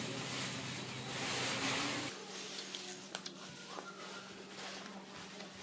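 Eating noises of a man eating with his hand: a noisy slurp as a mouthful of stir-fried water spinach is sucked in, about two seconds long. After a sudden drop in level come quieter scattered wet smacks and clicks of the lips and sucked fingers, over a low steady hum.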